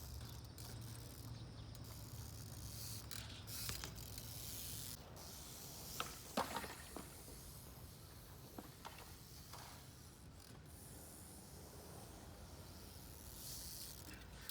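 Faint mechanical clicks and ticks from a street-trials bicycle, scattered irregularly over a low hiss, with the sharpest pair about six seconds in.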